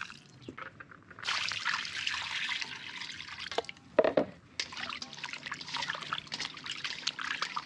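Water poured from a jug into a steel bowl of raw chicken pieces with lime and vinegar for about two seconds, then a short knock about four seconds in. After that, hands slosh and rub the chicken in the water, washing the meat.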